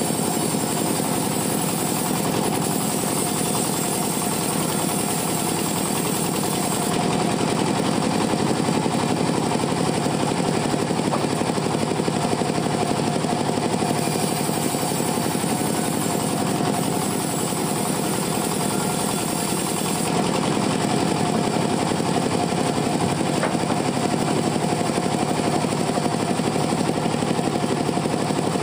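Chainsaw running steadily under load, cutting through teak wood.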